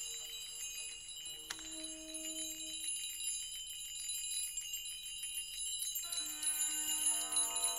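Many small bells and chimes ring together in a sparse, free percussion passage, with a continuous high shimmer. There is a single struck accent about a second and a half in, and a cluster of lower bell tones enters near the end.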